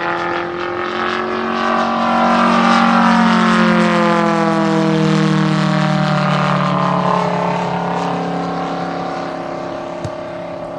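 Gasoline radial engine of a large-scale model airplane (a Gilmore Red Lion replica) in flight. It passes overhead with a steady droning note that grows louder, drops in pitch as the plane goes by about halfway through, and then fades.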